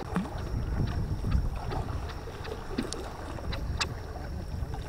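Low, steady rumble of wind on the microphone and water at the shore, with a few faint clicks.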